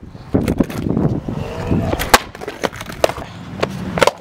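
A skateboard rolling on street asphalt, with sharp clacks of the board hitting the ground, the loudest about two seconds in and a cluster near the end.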